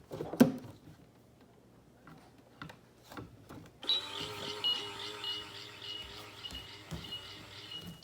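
Toy microwave running its electronic cooking sound: a steady hum with a high, broken tone that starts about four seconds in, after a single click near the start.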